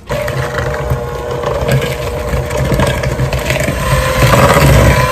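Electric KitchenAid hand mixer switched on at the start and running steadily, a motor whine with its beaters creaming shortening, brown sugar and egg yolks into dough.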